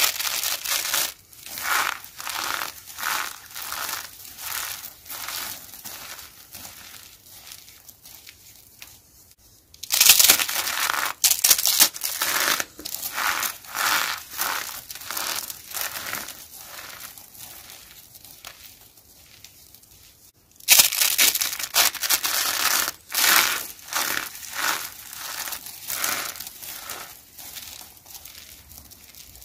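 Dry, starch-coated soap roses and chips crushed and crumbled by hand: crisp crunching squeezes in quick succession. They are loudest as a fresh handful is crushed, at the start and again about ten and twenty-one seconds in, and grow softer as the pieces break down.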